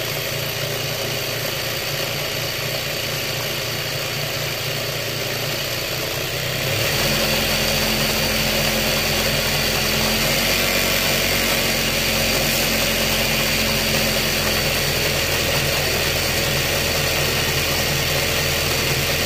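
Juki DDL-8700-H industrial sewing machine running steadily under the pedal, driving its bobbin winder as thread winds onto the bobbin. The running gets a little louder and deeper about seven seconds in.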